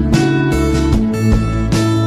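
Background music: a guitar strumming chords over steady bass notes.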